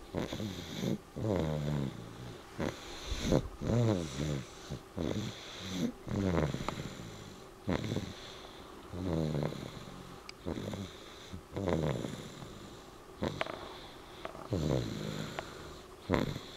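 Snoring in quick, uneven breaths, about one every second or so, each snore bending up and down in pitch.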